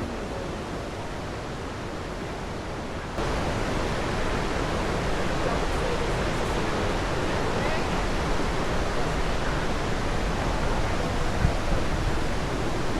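Rushing water of a mountain creek or waterfall, a steady roar of noise that becomes louder about three seconds in.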